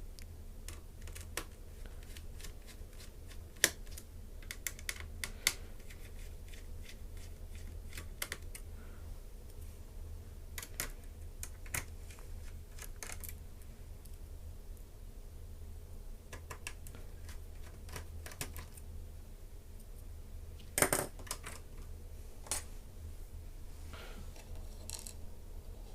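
Scattered light clicks and taps of a small screwdriver backing out the screws that hold a laptop's system board and CPU fan, with small metal screws set down; a short cluster of louder clicks comes late on, over a faint steady hum.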